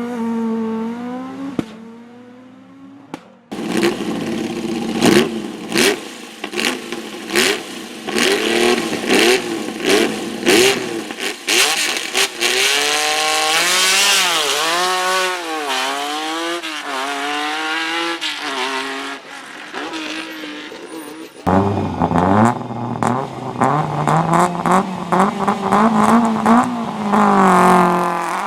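Rally car engines revving hard again and again and pulling away, with a run of sharp exhaust bangs and pops in the first half. The sound cuts to a different car about three seconds in and again about two-thirds of the way through.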